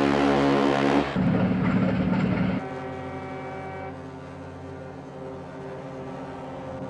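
Ship's horns sounding one after another: a loud, hissy blast that ends about a second in, a lower blast until about two and a half seconds, then a quieter steady horn note held to the end.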